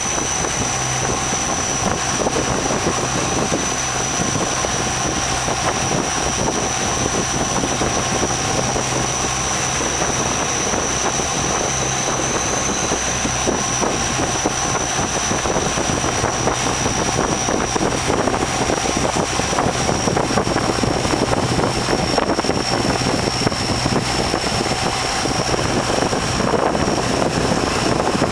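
A riverboat's engine running steadily under way, with a low hum, a high thin whine that sinks slightly in pitch over the stretch, and wind buffeting the microphone.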